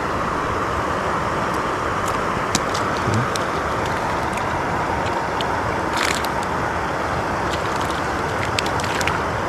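Steady rushing noise of flowing river water, with scattered small clicks over it, the sharpest about six seconds in.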